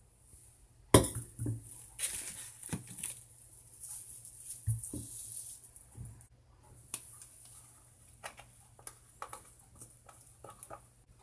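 Kitchen handling sounds: a sharp knock about a second in, then rustling and scattered small taps and clicks as ground pork and chopped onion are dropped into a stainless steel bowl from a plastic bag.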